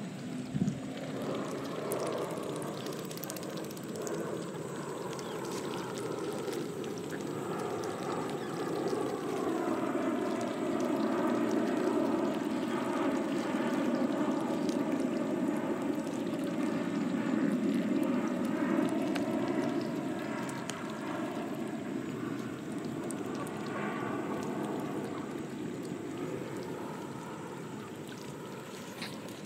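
A motor's steady drone swells over several seconds and then fades, over the splashing of mallards dabbling in shallow pond water. A brief sharp knock comes just after the start.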